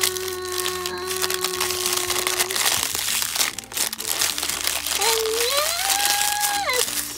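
Plastic toy packaging crinkling and crackling as it is handled and unwrapped by hand.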